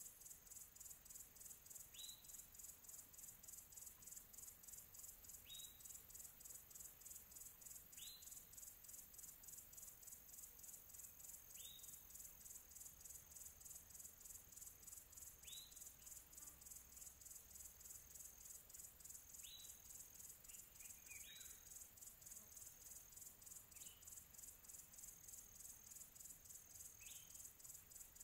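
Faint nature ambience of crickets chirping in a steady, rapid pulse, with a short falling call repeated every three to four seconds.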